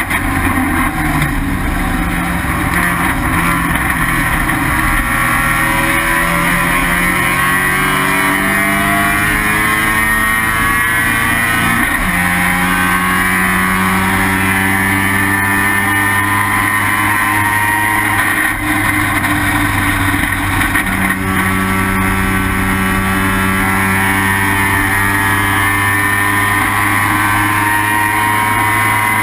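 Mazda RX-7 race car's rotary engine under hard load, its pitch climbing slowly through a long pull. About 12 seconds in it drops briefly with a gear change or lift, then climbs steadily again.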